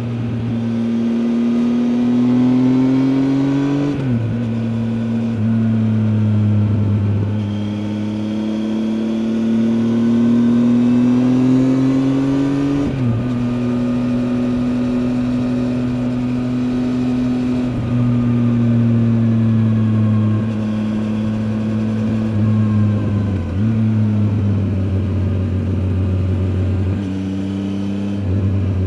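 Triumph Tiger 800 XCA's three-cylinder engine pulling under load while ridden, its pitch climbing steadily and dropping sharply at several gear changes.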